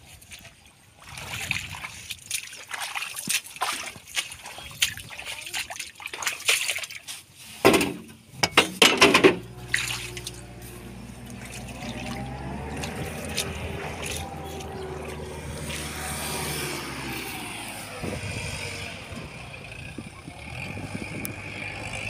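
Wet mud and water splashing and dripping, with scattered knocks. From about ten seconds in a tractor engine runs steadily, its pitch rising and falling for a moment a few seconds before the end.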